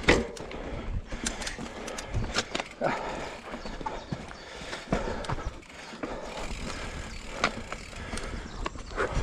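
Electric mountain bike rolling over rough trail: tyre noise with irregular knocks and clicking rattles from the bike.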